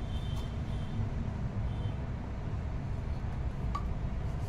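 Steady low background rumble, with a faint short click near the end.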